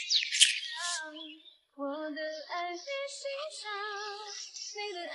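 Birds chirping in short high calls for the first second or so. Then, after a brief pause, a woman's voice sings a slow melody with vibrato, a song laid over the scene as background music.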